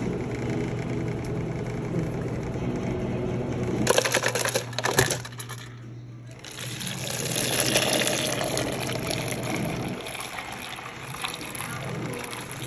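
Drink dispenser tap pouring berry agua fresca into a paper cup: a running, splashing stream of liquid, with a short burst of clattering about four seconds in.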